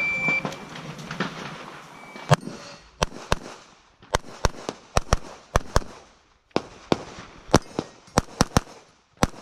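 Shot-timer start beep, then a competition pistol firing a rapid string of about seventeen shots, mostly in quick pairs, with short pauses between groups.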